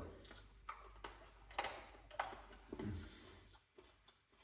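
Faint mouth sounds of a man biting into and chewing a piece of dark chocolate: a few soft clicks and smacks, about half a second to a second apart, dying away near the end.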